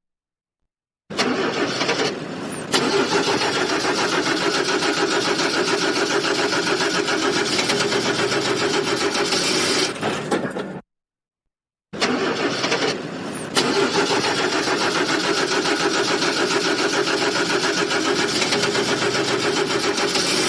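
A car's starter motor cranking an engine that does not catch, in two long attempts of about ten seconds each, with a short silent gap between them. The title calls it a bad battery.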